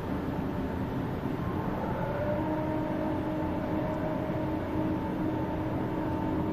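Steady rumble and hiss inside a Waratah electric train carriage, with a few steady electric hum tones joining about two seconds in as the train pulls away from the platform.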